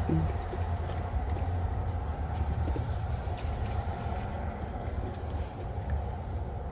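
Steady low rumble of highway traffic, with a constant noise band and no distinct events.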